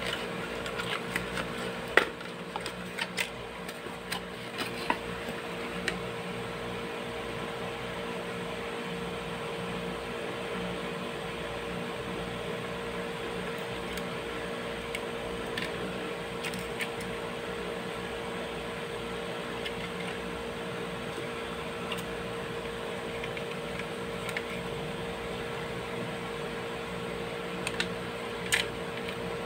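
Steady machine hum, like a running fan, under scattered small clicks and scrapes of hands working thin wire twist-ties free from a plastic diecast toy car and its box insert. The clicks cluster in the first few seconds, with a sharp one about two seconds in, and return briefly near the end.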